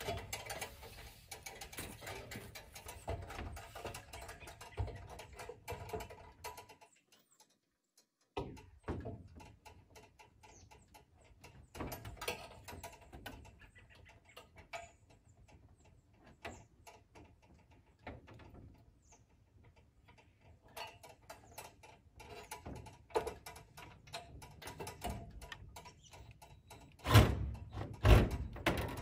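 Irregular knocks, taps and rattles of hands and tools working from an aluminium ladder against corrugated metal barn siding, with two heavy thumps near the end. The sound drops out for about a second and a half around seven seconds in.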